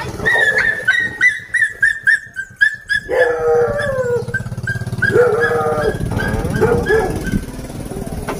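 Dog yelping in a quick run of short, high, falling cries, then howling in longer, lower notes for the rest of the time, over a steady low hum.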